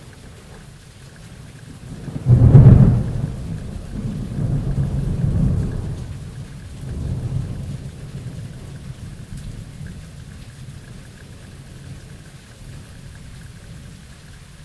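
Thunderstorm: steady rain with a thunderclap about two seconds in, loud at first and then rolling in deep rumbles that die away over several seconds.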